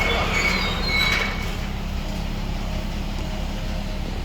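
Steady low drone of a 2018 Nissan Rogue on the move, the rear differential noise at issue in a warranty claim, with a few brief high squeaks in the first second or so.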